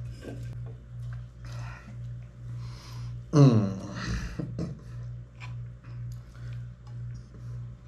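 Soft background music with a low bass pulse beating about twice a second. About three and a half seconds in, one loud, short voice-like sound falls in pitch, with a few soft rustles before it.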